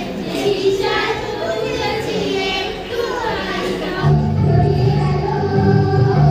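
Children singing together. About four seconds in it cuts abruptly to a song with heavy bass.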